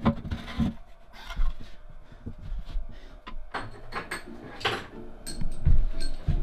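Irregular knocks and clicks of metal parts being handled on a pillar drill press head, with background music coming in about halfway through.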